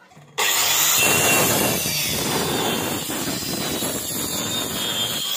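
Handheld electric wood router running at speed: a steady high whine over a rough, dense motor and cutting noise, starting abruptly about half a second in.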